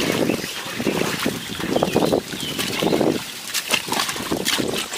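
Water splashing and sloshing as legs wade through shallow, muddy pond water, followed near the end by short wet slaps and squelches of hands working mud at the bank.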